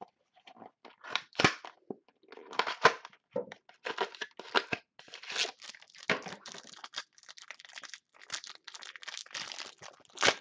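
A football card pack's plastic wrapper torn open and crinkled by hand, among the rustle of cards being handled. Irregular crinkling throughout, with the loudest sharp cracks about 1.5 and 3 seconds in.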